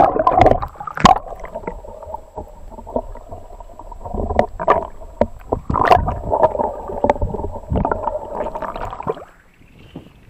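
Lake water heard from below the surface: a splash as the microphone goes under, then muffled bubbling and gurgling with scattered knocks and sloshes, cutting off abruptly about nine seconds in as it comes back out of the water.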